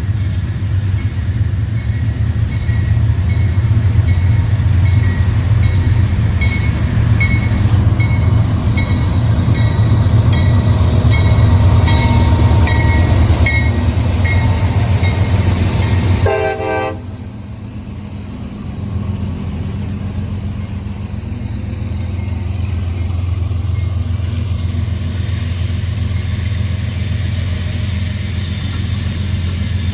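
Diesel locomotives of a CSX freight train running by with a steady low engine rumble and a regular ticking on top. The sound drops suddenly about sixteen seconds in, then builds again.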